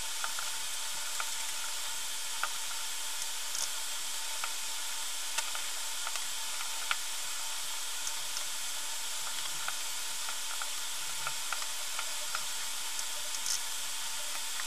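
Steady hiss with a few faint steady tones in it, from the recording itself, with faint small clicks scattered through it as jumper wires are handled and pressed into a solderless breadboard.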